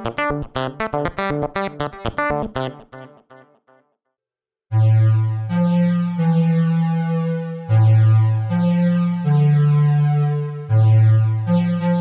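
Syntronik Harpy 260 software synthesizer, modelled on the ARP 2600, playing a rapid arpeggio of short notes that dies away about three seconds in. After a brief silence, a bright square-wave pad plays sustained chords over a bass line, changing chord every second or two.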